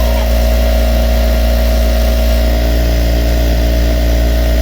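Jack industrial lockstitch sewing machine running steadily with no fabric under the needle, a constant mechanical hum. It is being run empty after its oil-flow screw was loosened, so that the excess oil dries off.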